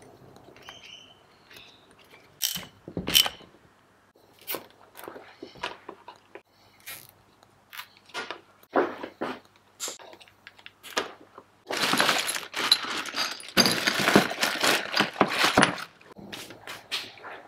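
Hands handling small engine parts and wiring on a steel workbench: scattered clicks and knocks, then a few seconds of crinkling plastic bag near the end.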